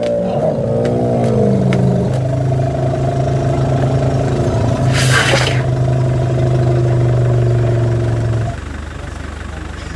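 A vehicle engine revving unevenly, then held at steady raised revs before dropping back to idle near the end. A brief hissing rush about halfway through.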